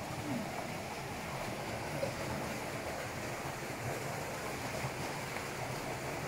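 Water flowing in a rocky canyon pool: a steady, even rushing hiss.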